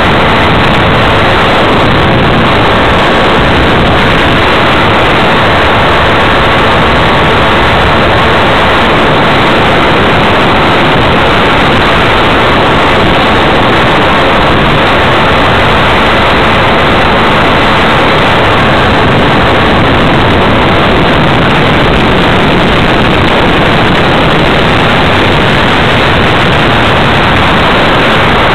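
Radio-controlled FPV aircraft in flight, heard through its onboard camera microphone. A steady, loud rush of propeller and wind noise carries a faint, even motor whine.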